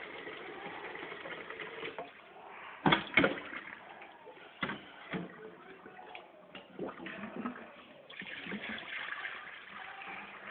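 A kitchen tap runs into a bowl in a stainless steel sink, and the flow stops about two seconds in. Several sharp knocks and clatters follow as the bowl is handled in the steel sink, the loudest about three seconds in. A steady rush of water returns later.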